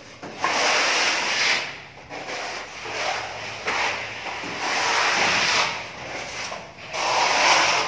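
Hand sanding of a patched plaster wall: long rasping strokes of abrasive over dried wall putty, about four strokes of roughly a second each with short pauses between.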